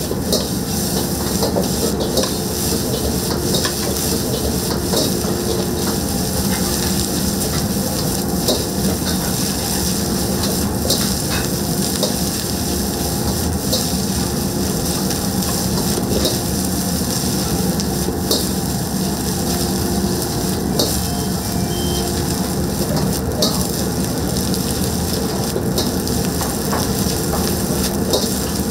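Egg fried rice being stir-fried in a wok: a steady sizzle with many irregular knocks and scrapes of a metal ladle against the wok, over a steady hum.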